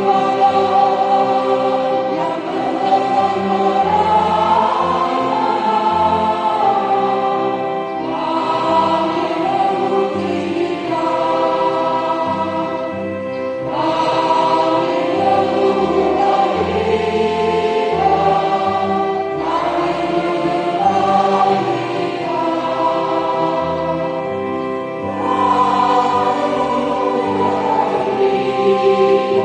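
Mixed choir of men's and women's voices singing together, in sung phrases with short breaths between them.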